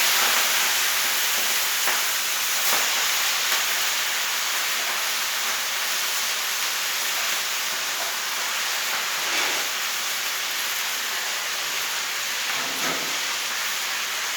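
Chopped leafy greens (saag) sizzling loudly in hot oil in a pan after being dropped in, a steady hiss that slowly eases, with a few faint knocks.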